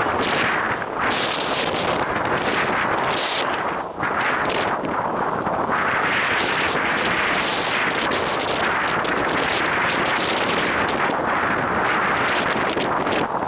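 Strong wind buffeting the microphone: a loud, continuous rushing roar that swells and dips with the gusts.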